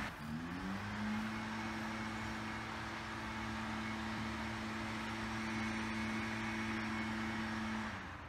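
A small engine climbs in pitch over the first second, as if coming up to speed, then runs at a steady speed and stops near the end.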